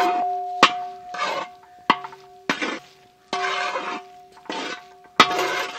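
Steel spatula stirring and scraping a thick, dry spice masala across a large metal pan, in repeated strokes about once a second, some starting with a sharp clink of metal on metal. A steady ringing tone sounds under the strokes.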